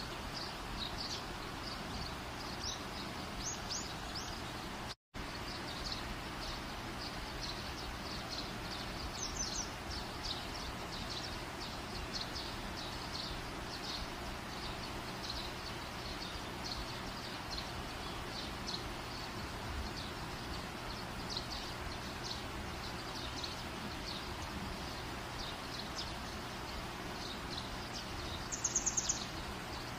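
Birds chirping and twittering over a steady background hiss, with a brighter, louder burst of twittering near the end. The sound drops out for an instant about five seconds in.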